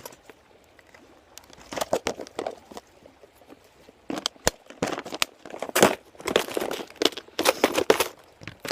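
Rummaging through a fishing tackle bag: plastic and packaging crinkling and rustling in irregular bursts.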